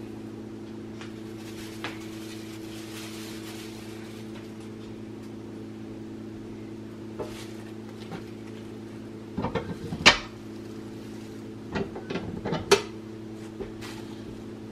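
A steady low hum runs underneath. From about nine seconds in come a few sharp clacks and knocks of the tortilla press and its plastic sheet being handled, the sharpest about ten seconds in.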